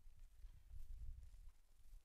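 Near silence, with only a faint, uneven low rumble.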